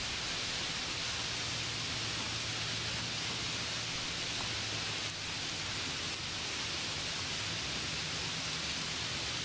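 Steady, even hiss with a low hum underneath, unchanging throughout; no distinct handling knocks stand out.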